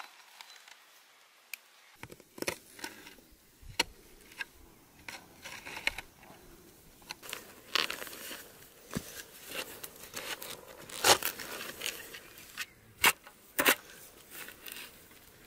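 Metal spade digging into grassy soil: irregular scrapes and crunches as the blade is driven into the turf and the earth is lifted and dropped, the sharpest strikes coming about two-thirds of the way through.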